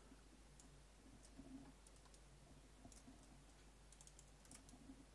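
Near silence: faint room tone with a few faint clicks.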